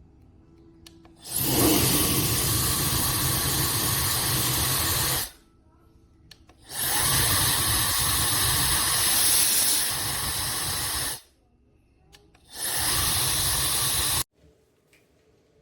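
Compact brushless hair dryer switched on and off three times, running with a steady loud rush of air each time. Its level drops a little partway through the second run, and each run stops abruptly.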